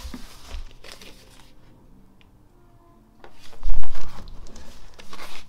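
Handling of a vinyl LP box set's record sleeves and packaging on a table: paper and cardboard rustling and sliding, with clicks in the first second and a burst of heavy thumps and rubbing a little past halfway.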